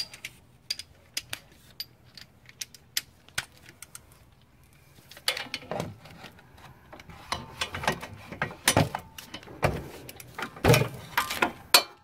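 Metal hand tools clinking and rattling with scattered sharp clicks, sparse at first and busier from about halfway: a socket extension and a torque wrench being handled and fitted together to reach a brake caliper bolt.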